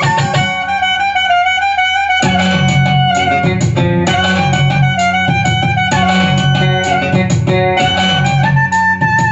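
Clarinet playing a Telugu film song melody over an electronic arranger keyboard's accompaniment with a steady bass and drum rhythm. The low rhythm drops out for about a second and a half shortly after the start, then comes back.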